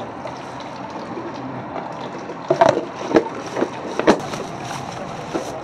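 Plastic lid being pressed down onto a plastic paint bucket: about four sharp knocks and snaps between about two and a half and four seconds in, over steady background noise.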